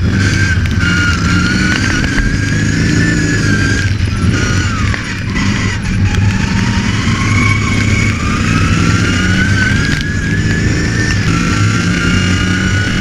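Racing ride-on lawn mower's engine running hard, with a steady low hum and a high whine. The whine falls as the mower slows about five seconds in, then rises again as it speeds back up.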